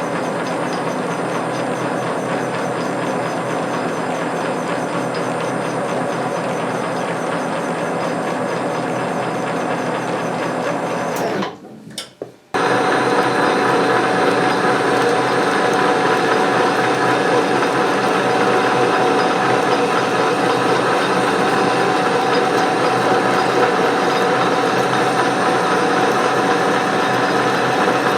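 Metal lathe running under power feed with its change gears and lead screw driving the carriage, cutting a screw thread: a steady gear whine and clatter. It breaks off for about a second near the middle and comes back louder.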